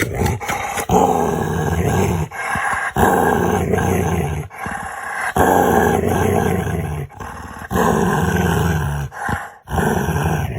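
Dog making a string of drawn-out, growly vocal noises in play, each lasting about a second or so, with short breaks between them.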